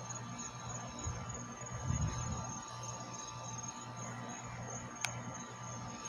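Crickets chirping in a steady, high, pulsing trill over a low hum, with a brief low rumble about two seconds in and a single sharp click near the end.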